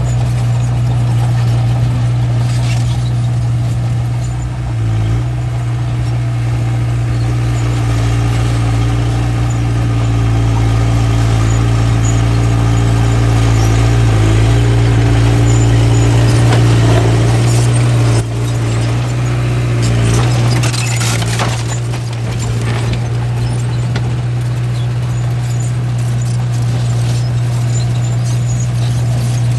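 Small bulldozer's diesel engine running steadily under load, its note dipping briefly a few times, with a burst of higher-pitched squealing noise about 21 seconds in.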